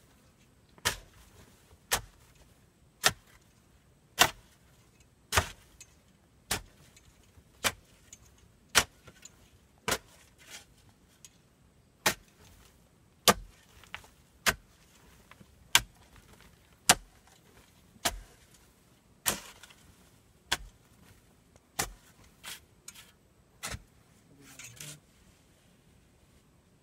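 Pickaxe striking packed soil and rock, one steady blow a little over every second. The blows stop a few seconds before the end, after a short scrape.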